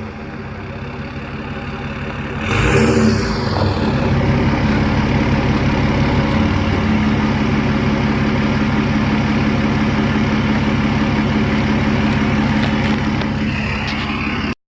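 Tuned, emissions-deleted EcoDiesel 3.0 L V6 turbodiesel with a custom catback exhaust, running under load. The note builds gradually, surges loudly about two and a half seconds in, then holds a steady loud drone until it cuts off abruptly near the end.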